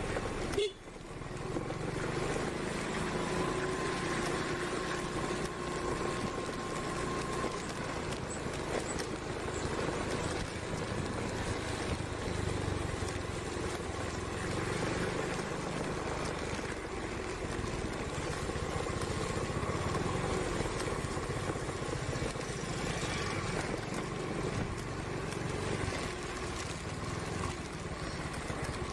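Motor scooter engine running at low speed while riding, with steady wind and wet-road noise; the sound briefly drops out about a second in.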